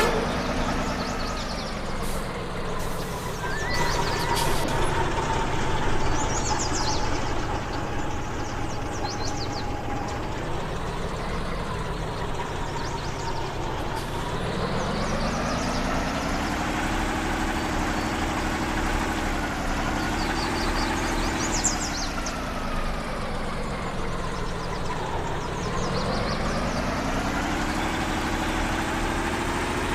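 Off-road vehicle's engine running under varying throttle, its pitch rising and falling several times, with short high squeaks now and then.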